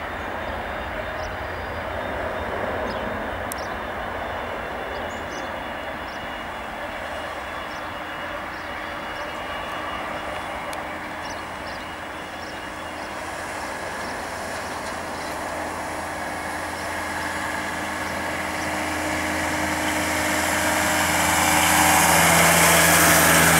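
Boeing 737-800 jet engines (CFM56-7B turbofans) at takeoff power: a steady rumble and hiss. It grows louder through the second half as the airliner runs down the runway and climbs away, and is loudest near the end.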